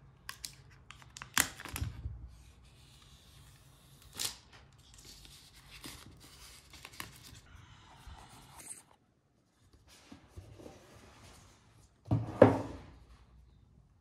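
Plastic shrink wrap being torn and peeled off a cardboard laptop box, crinkling and crackling in uneven bursts with sharp snaps. A short loud thump of the box being handled comes near the end.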